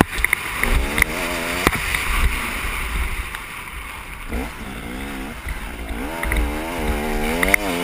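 KTM motocross bike's engine revving up and down as the rider works the throttle around the dirt track, pitch climbing and dropping over and over. Wind rumbles on the helmet microphone throughout, with a couple of sharp knocks early on.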